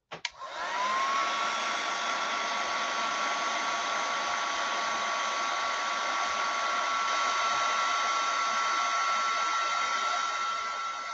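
Handheld craft heat tool switched on with a click, its fan spinning up with a rising whine within about a second and then blowing steadily, drying wet watercolour paint on paper. It gets quieter near the end.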